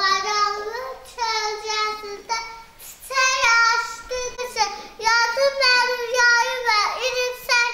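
A young child singing unaccompanied in a high voice, holding notes in short phrases with brief breaks between them.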